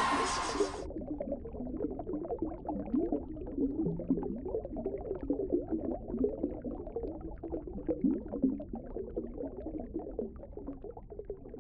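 A music track cuts off about a second in, giving way to muffled underwater bubbling and gurgling, an irregular patter of small bubbles that fades toward the end.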